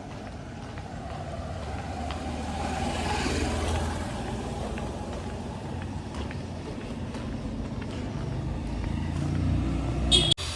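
Road traffic passing close by: one vehicle's noise swells and fades about three to four seconds in, and another engine's low rumble builds near the end before cutting off suddenly.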